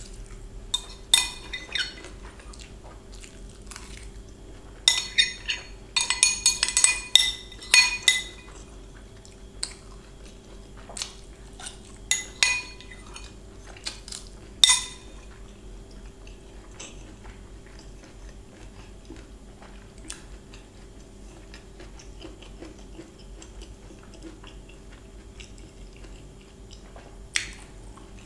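Steel spoon scraping and clinking against a glass bowl in short clusters of sharp, ringing clinks, with quieter chewing in between.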